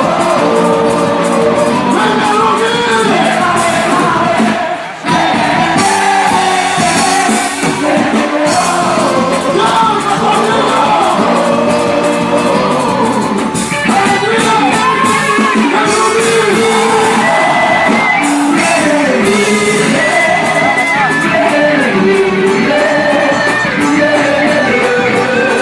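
Loud music with singing, with a brief drop about five seconds in.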